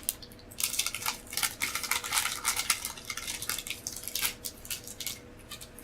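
A Minions blind pack being opened by hand: its packaging crinkles, crackles and rustles in quick irregular bursts, busiest in the first four seconds, then tapering off.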